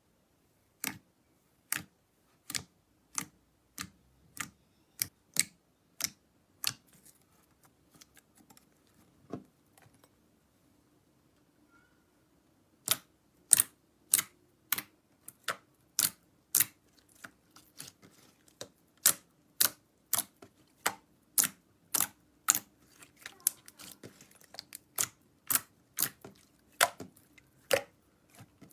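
Slime being worked by hand, giving a regular series of sharp clicking pops, about one to two a second, with a quieter stretch of faint crackles in the middle.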